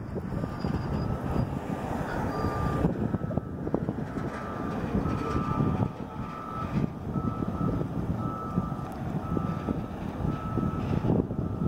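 Wind buffeting the microphone, with a high electronic beep repeating evenly in the background from about three seconds in, like a vehicle's reversing alarm.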